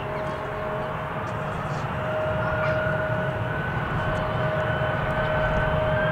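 Boeing 767-300ER jet engines running: a dense roar with a steady hum and a whine that climbs in pitch near the end, the noise slowly growing louder as the engines spool up for takeoff.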